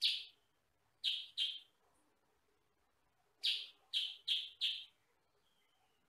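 Caged kutilang sutra, a yellow-and-black bulbul, giving short, loud chirping calls: one at the start, a quick pair about a second in, then a run of four about three and a half seconds in.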